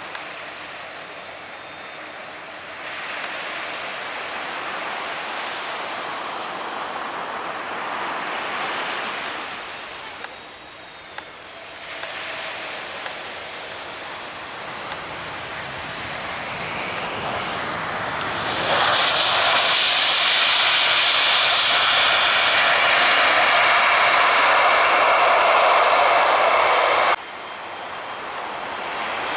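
Aircraft engine noise from planes taking off or landing close by, heard in several cut-together stretches. It is loudest for about eight seconds from roughly two-thirds of the way in, then stops abruptly.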